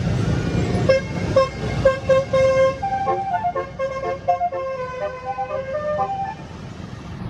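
Bus 'telolet' musical horn playing a tune: short repeated toots on one note, then a melody stepping up and down between several notes, ending about six seconds in. A vehicle engine rumbles under the first two seconds.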